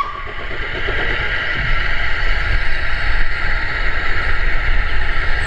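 Avonside saddle tank steam locomotive working toward the listener with a train: its whistle dies away at the very start, then a steady hiss of steam over a low, rough exhaust rumble that grows louder about a second and a half in.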